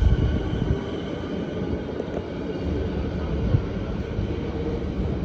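Steady low rumble of a train on the line, with faint steady tones above it.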